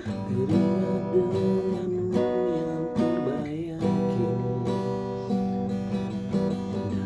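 Strummed acoustic guitar music, an instrumental passage with sustained chords and a wavering melody line above them.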